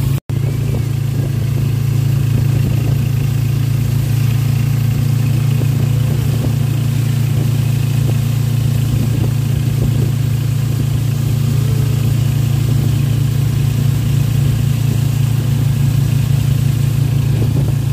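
Motorcycle engine of a tricycle running steadily under way, heard from inside the sidecar as a constant low drone. The sound cuts out for an instant just after the start.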